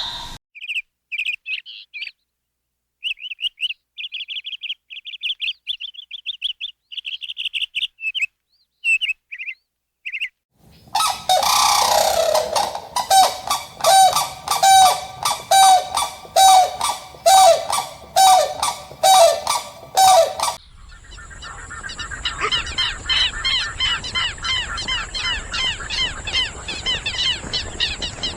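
Bird calls. First come short, thin, high chirps with gaps between them. About ten seconds in, loud repeated calls start, nearly two a second and evenly paced. They stop suddenly and give way to many overlapping chirps over a steady high hiss.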